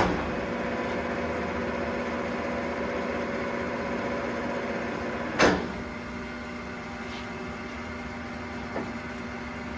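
Clausing Colchester 21-inch geared-head engine lathe running unloaded in low range at 185 RPM, a steady mechanical hum with a few constant tones from its headstock gearing and motor. A click comes right at the start, and a sharp knock about five and a half seconds in, after which it runs a little quieter.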